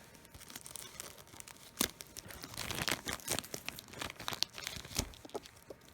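Plastic packaging crinkling and a cardboard box scraping against it as a tight-fitting Blu-ray box set is worked out of its plastic sleeve, with irregular rustling and a few sharp clicks, the loudest about two seconds in and near five seconds.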